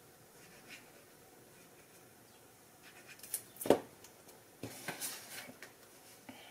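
Handling of cardstock on a craft mat: a few light clicks and one loud knock a little past halfway as a liquid glue bottle is set down, then paper rustling and sliding as card pieces are picked up and laid in place.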